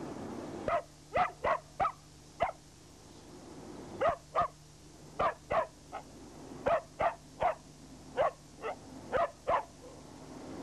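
Dog barking repeatedly at a passing train, about seventeen short, sharp barks in quick bunches of two to four.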